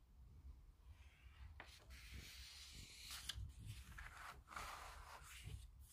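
Faint rustling of paper instruction-booklet pages being turned and smoothed flat by hand, with a few soft brushing strokes.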